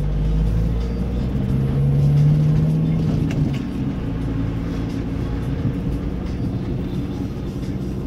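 Car engine and road noise heard from inside the cabin while driving, a steady low hum that swells briefly about two seconds in.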